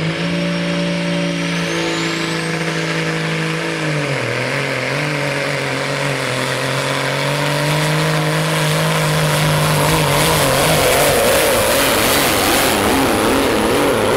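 Pulling-class Peterbilt semi truck's diesel engine at full throttle, hauling a weight-transfer sled. The engine note climbs with a rising whistle at the start and steps down about four seconds in. From about ten seconds in, a louder rushing noise from spinning tyres and the sled takes over.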